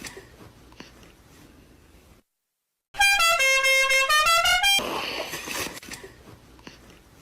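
A loud, buzzy horn-like tone lasting about two seconds, stepping down in pitch and back up, followed by a long fading echo. Before it, the echo of an earlier sound dies away and there is a moment of silence.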